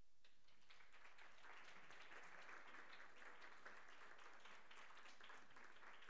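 Faint audience applause: many quick overlapping claps that pick up about a second in and carry on steadily.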